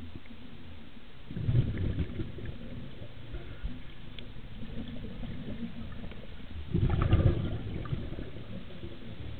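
Scuba diver's exhaled bubbles from a regulator, heard underwater through the camera housing: two bubbling, rumbling bursts about five seconds apart, one breath each.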